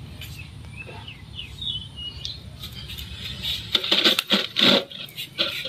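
Knife slicing thin chips from a peeled raw cassava root on a cutting board: a run of short cuts and taps of the blade on the board, starting a little past halfway through.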